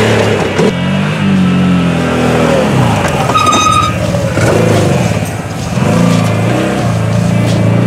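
Side-by-side UTV engine, a Can-Am Maverick, revving up and falling back again and again as it drives past on a dirt track. A brief high-pitched tone sounds about three and a half seconds in.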